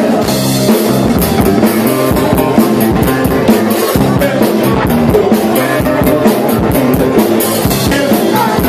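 Live blues band playing, with drum kit, electric bass guitar and guitar.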